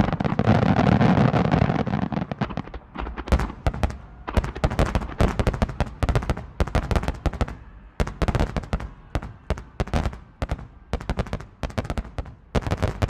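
Fireworks display going off: a dense barrage of bangs and crackling in the first couple of seconds, then a long run of sharp, irregular cracks and bangs, several a second.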